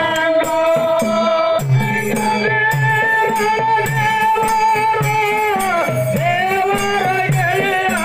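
A man singing a dollina pada, a Kannada devotional folk song, holding long notes that glide up and down. A drum keeps a steady beat from about two seconds in, with jingling rattle-like percussion throughout.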